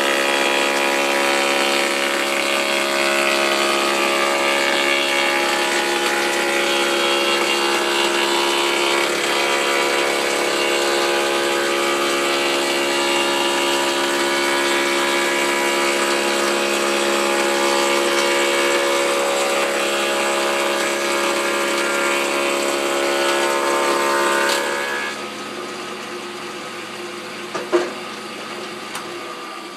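Foley Belsaw planer/moulder with a 5-horsepower motor, cutting thick oak through tongue-and-groove knives: a loud, steady whine with many evenly spaced tones. About 25 seconds in, the cut ends and the machine runs on much quieter, with one sharp knock near the end.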